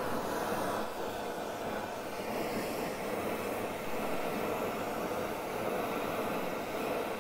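Hand-held gas torch burning with a steady, even hiss as its flame heats a thick metal casting toward cherry red so it can be bent back into line.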